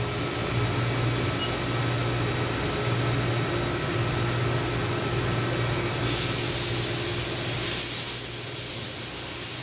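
Steady mechanical hum, joined about six seconds in by a steady high hiss.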